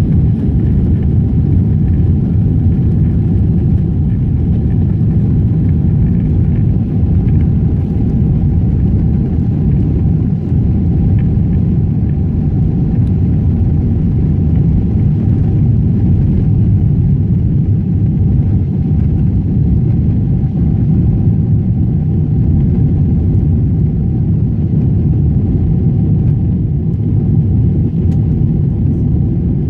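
Jet airliner's cabin noise during the takeoff run and lift-off: engines at takeoff thrust and runway rumble, heard from a window seat as a loud, steady low rumble with a faint steady hum above it.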